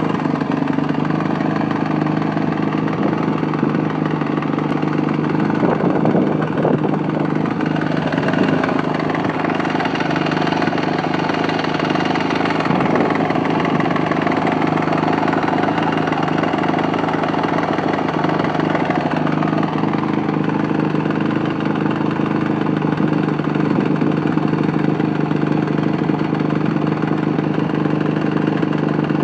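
Yamaha YZ450F's single-cylinder four-stroke engine idling, mostly steady, with the knocking noise that began after the bike was dropped; the owner does not know what is causing it.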